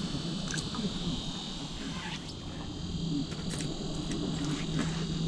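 A steady high whine over a steady low hum, with a few faint light ticks.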